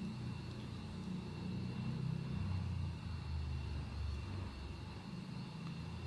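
Low, steady background rumble, with a faint steady high-pitched whine above it.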